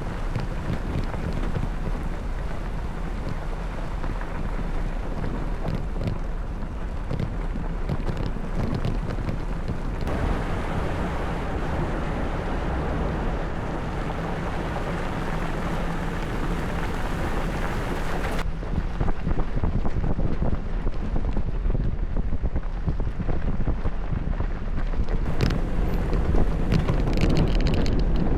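A vehicle driving with wind buffeting the microphone: a steady, low-heavy rumble and rush. The sound changes abruptly about 10 seconds and 18 seconds in.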